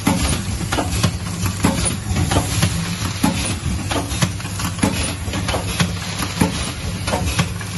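Ultrasonic drip-coffee bag packaging machine running: a steady low motor hum under a hiss, with frequent mechanical clicks and knocks from its moving parts, about two a second.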